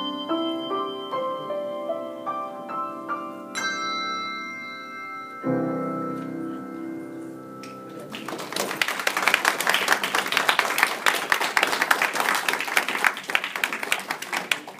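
Brass handbells ringing a tune, ending on a loud chord about five seconds in that rings out and fades. Then an audience applauding.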